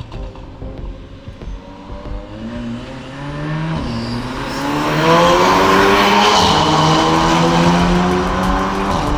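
Volkswagen Golf R 2.0 TSI four-cylinder, tuned to stage 2 with an upgraded turbo and Milltek Sport exhaust, accelerating hard on the road. The engine note rises in pitch and gets louder, and drops twice, about four and six and a half seconds in, at quick DSG upshifts.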